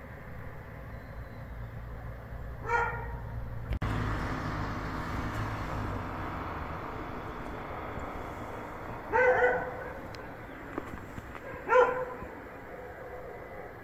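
A dog barking three times, single short barks spaced several seconds apart, the third the loudest.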